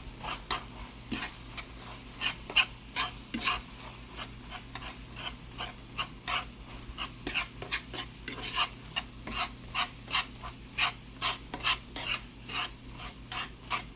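Utensil scraping and tapping against a non-stick frying pan, breaking up scrambled eggs as they sizzle. The strokes come quickly, about two or three a second, over a steady frying hiss.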